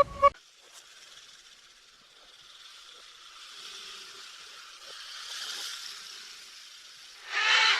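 Snake hissing: a long breathy hiss that swells and fades in waves over several seconds. A louder, brief sound comes just before the end and cuts off abruptly.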